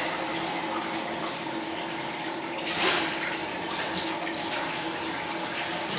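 Water from a bathtub faucet running steadily into a plastic measuring jug, filling it.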